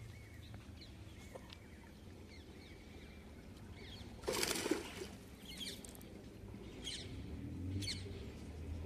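Hooked rohu splashing at the water's surface as it is drawn in on a handline to the canal's edge: one louder splash about four seconds in, then a few shorter ones. Faint bird chirps in the background.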